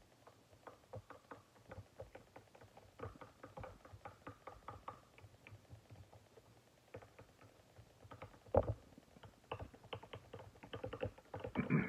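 Wooden craft stick stirring powdered food colouring into clear gloss finish in a glass jar: quick, irregular clicks and taps of the stick against the glass, with a couple of louder knocks in the second half.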